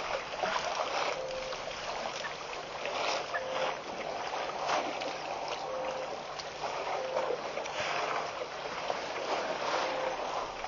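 Water splashing and sloshing irregularly as African elephants wade in a waterhole and drink with their trunks.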